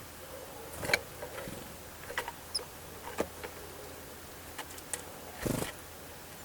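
Small birds feeding: scattered sharp taps and clicks, the loudest about a second in, one faint short high chirp about two and a half seconds in, and a brief rustle near the end.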